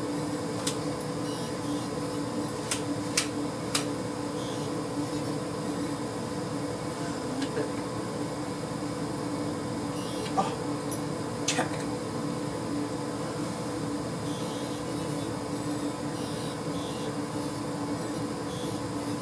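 A steady hum made of several fixed tones, with a few sharp clicks in the first four seconds and again near the middle.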